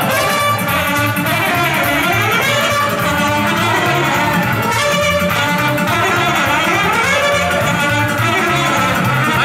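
Live band music: a trumpet playing a melody with saxophone, over a steady beat in the bass.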